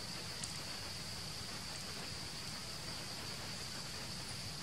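Steady high-pitched insect drone over an even background hiss in forest ambience, with one faint click about half a second in.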